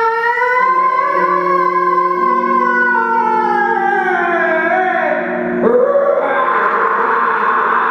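A man's voice pressed into a cupped microphone, holding a long wavering tone that slowly rises and then sinks, over steady lower tones. About five and a half seconds in it breaks into a rough, hissing breath-noise.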